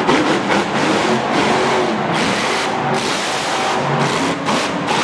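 Monster truck engine revving hard, its pitch swooping up and down again and again as the truck jumps onto and drives over crushed cars.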